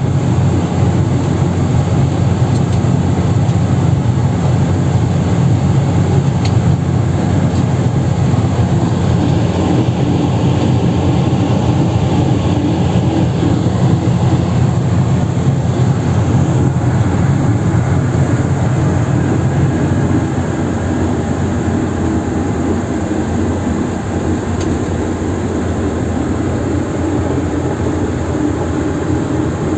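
Heavy truck rig with a Tonar semi-trailer running, a loud steady rumble with a whistle from the trailer mixed in.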